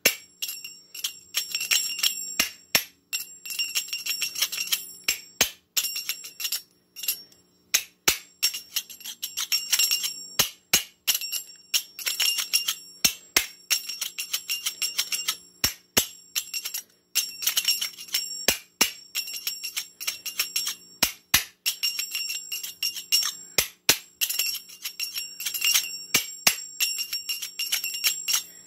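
Rapid, irregular metallic clicking and clinking of small hand-held objects tapped together, each click leaving a brief bell-like ring. The clicks come in bursts with short pauses between them.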